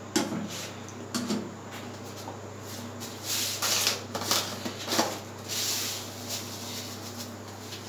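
A spoon scraping and clicking in a saucepan of thickening custard: a few light clicks in the first second and a half, then short gritty scraping rustles, the longest about three seconds in and just after five seconds, over a steady low hum.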